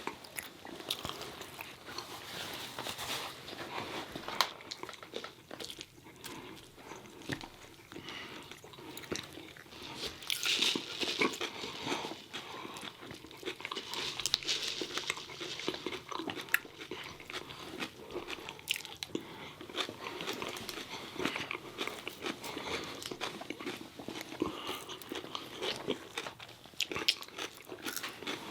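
Close-miked eating: biting and chewing crispy fried chicken tenders and fries, with crunching and many small mouth clicks.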